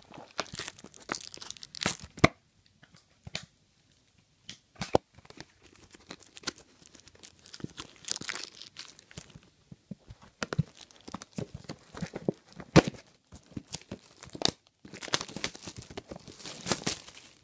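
Packaging of a new t-shirt being torn open and crinkled by hand: irregular tearing and crackling with sharp clicks in between, heaviest in the first two seconds, around eight seconds in, and near the end.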